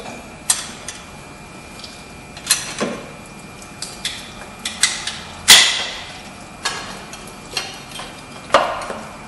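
Irregular metal knocks and clanks as a coolant tube is rocked back and forth and pried out of the water pump, the loudest knock a little past halfway.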